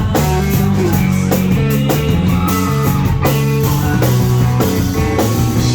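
Live rock band playing loudly: electric guitars, bass and drum kit, with no vocals.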